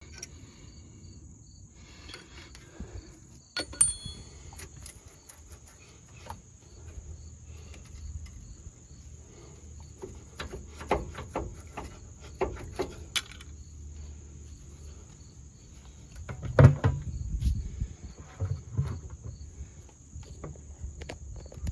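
Scattered metallic clicks and knocks of hand-tool work on a brake assembly, with a heavier thump about 17 s in, over a steady high-pitched drone of insects.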